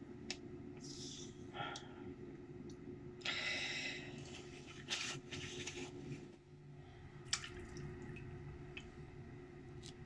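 Wet shaving with a cartridge razor on coconut-oiled skin: short scraping strokes over stubble, with small wet clicks and squishes, the longest scrape about three seconds in. A steady low hum sits underneath.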